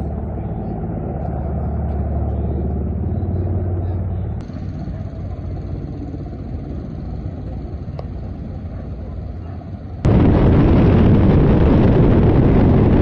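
Ka-52 coaxial-rotor attack helicopter heard from the ground as a steady low drone of rotors and turbine engines. About ten seconds in, the sound cuts abruptly to a much louder, dense rushing noise of rotor wash and airflow heard close up, from on board the helicopter.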